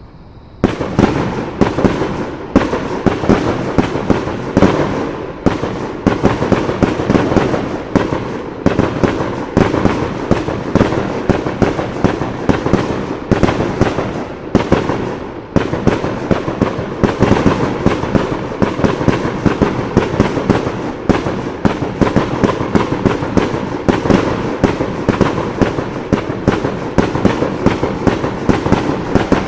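Fireworks bursting in a dense, continuous barrage, many bangs a second, starting suddenly about half a second in.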